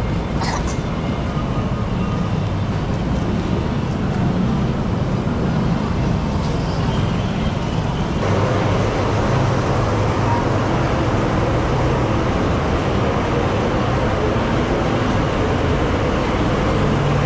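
Street traffic noise: a steady wash of vehicle engines running and passing, with a low engine hum. The sound abruptly grows fuller and louder about eight seconds in.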